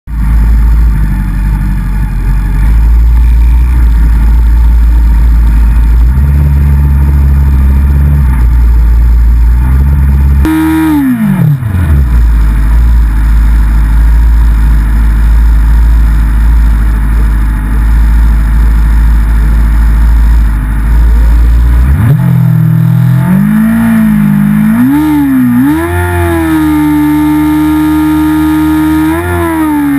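Racing motorcycle engine heard close up from the bike itself. It runs low and steady, drops sharply in pitch about ten seconds in, then from about two-thirds of the way through is revved up and down several times and held at raised revs, as a rider does on the grid before a race start.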